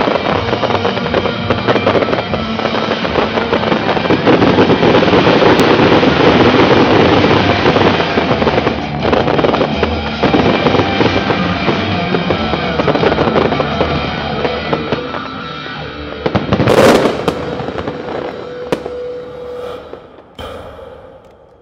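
A fireworks finale: many shells bursting at once in a dense, continuous barrage of bangs and crackling stars. One last very loud burst comes about seventeen seconds in, then the sound dies away.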